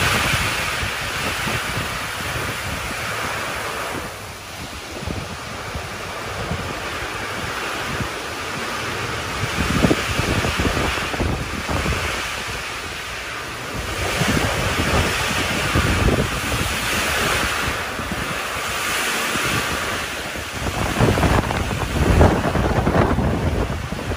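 Heavy wind-driven rain and strong gusting wind of a tropical-depression storm, with wind buffeting the phone's microphone. The gusts swell and ease, strongest in the second half.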